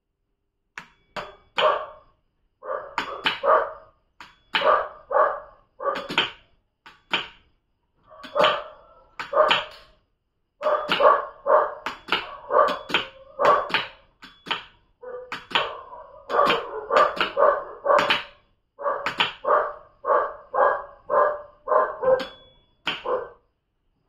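A dog barking over and over in short runs of two to four barks with brief pauses between them.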